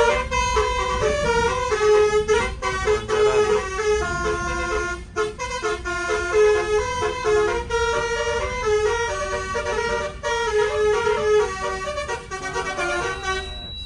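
Bus's Basuri 'telolet' air-horn module, with twelve roof-mounted trumpets, playing a fast melody of stepping notes over the low rumble of the moving bus. The melody stops near the end.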